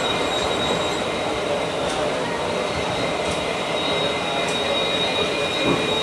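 Passenger coach of an Indian express train rolling slowly out of a station, heard from inside: a steady running noise of wheels on rail with a steady high-pitched squeal over it.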